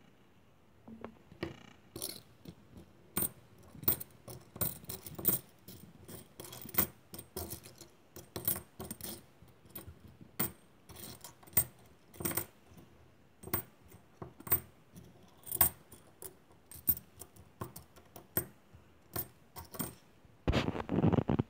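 UK 50p coins clinking against one another and the tabletop as they are picked up and set down one by one, in many short, sharp, ringing clicks. Near the end comes a louder rubbing, shuffling noise lasting about a second.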